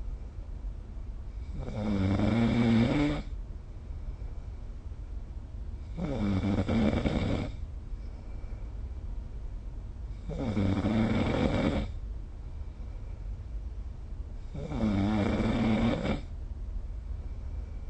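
A sleeping person snoring: four snores about every four seconds, each lasting roughly a second and a half, with a low hum between them.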